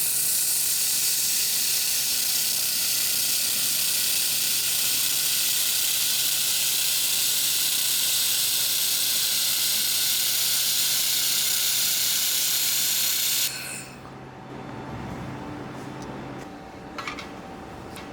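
Handheld laser welder running, its shielding gas hissing steadily from the torch nozzle. The hiss cuts off suddenly about thirteen seconds in, leaving a quieter low hum and a few light clicks.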